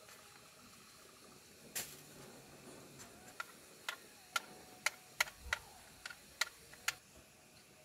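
A series of about ten sharp, irregularly spaced clicks over a faint hiss, the loudest a little past the middle.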